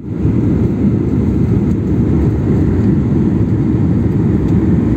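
Steady low roar of a jet airliner's engines and rushing air, heard from inside the passenger cabin on the approach to landing.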